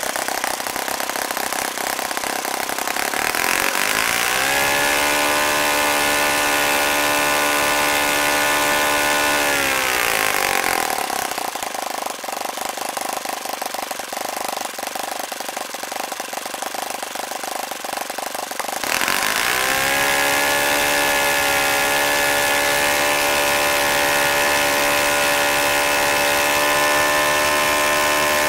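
OS FS-40 four-stroke glow engine driving an APC 11x6 propeller on its first run after a rebuild. Its pitch climbs about three seconds in, holds steady, and drops back around ten seconds. It runs lower and a little quieter for several seconds, then climbs again just before twenty seconds in and holds high.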